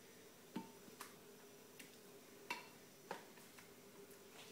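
Four faint clicks, spaced irregularly, of a spoon tapping against a plastic tub and a glass bowl while stewed rhubarb is spooned in.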